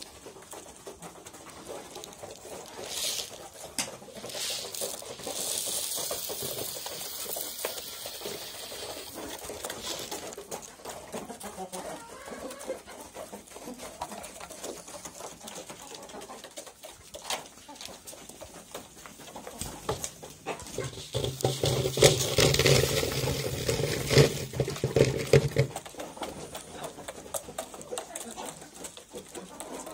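Domestic hens pecking pellet feed from a wooden trough, a run of quick beak taps with soft clucking. In the first few seconds there is a rattle of feed pellets in a plastic bucket. About twenty seconds in, a louder, steady low-pitched sound joins for about six seconds.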